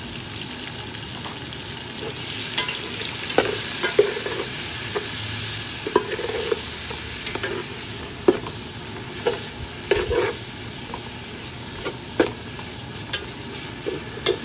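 Onion, tomato and spice masala frying in hot oil in a metal pot, sizzling steadily. A metal slotted spatula stirs it, clinking and scraping against the pot roughly once a second.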